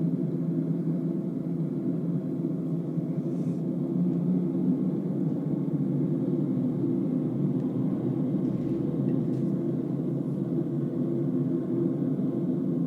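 Hino bus's diesel engine and road noise heard from inside the cabin: a steady low drone with a few faint, brief higher sounds over it.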